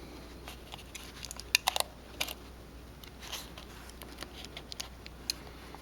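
Small clicks and light taps of a small metal shield plate and tools being handled and set into place on an opened iPhone 6 Plus, with a quick cluster of clicks about a second and a half in.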